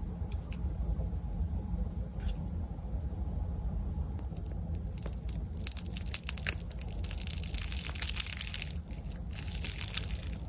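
Slime being squeezed and worked by hand, with a few isolated pops at first, then dense crackling and popping from about four and a half seconds in. A steady low hum runs underneath.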